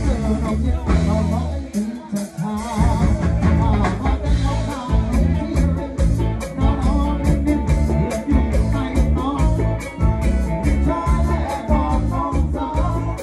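A live band playing with a singer on vocals over a steady drum beat and bass. The drums and bass drop out briefly about two seconds in, then the groove picks up again.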